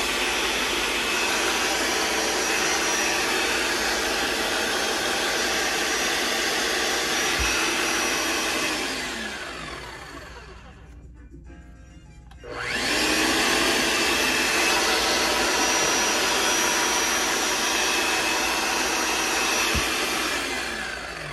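Milwaukee 5446-21 SDS-Max demolition hammer run with no bit in the chuck, its electric motor running steadily at full speed. About nine seconds in it winds down with a falling whine and stops; two seconds later it starts again with a rising whine, runs, and winds down again near the end.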